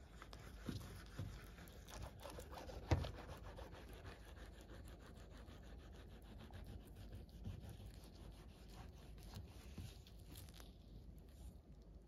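Scratchy rubbing on the stainless-steel front of a microwave oven, crackling with many small clicks, with one sharp knock about three seconds in.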